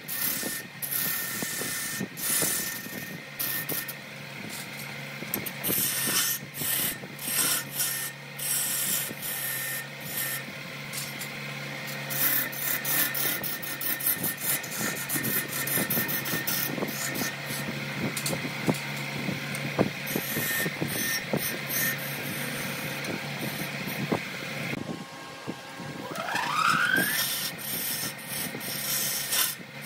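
Wood lathe spinning a large redwood blank while a hand-held turning tool cuts into it: a steady scraping hiss over the lathe's hum, broken by frequent sharp ticks. A short rising squeal sounds a few seconds before the end.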